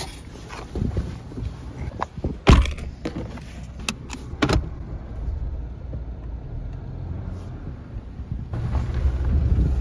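Car driving slowly along a rough, muddy dirt track, heard from inside the cabin: a steady low rumble of engine and tyres, with a series of sharp knocks and rattles in the first half, the loudest about two and a half seconds in. The rumble grows louder near the end as the car picks up speed.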